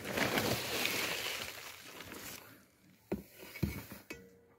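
Vermiculite pouring from a plastic sack into a plant pot: a rushing hiss with the sack rustling, fading out after about two seconds, then two light knocks.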